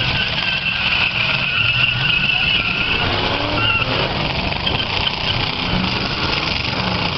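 V8 demolition derby cars running hard and spinning their tyres on asphalt, with a high tyre squeal for the first two to three seconds over the low engine sound.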